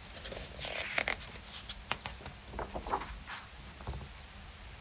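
Night-time ambience sound effect of crickets chirping: a steady high trill with a regular pulsing chirp over it. A few soft rustles and taps come in over the first three seconds or so.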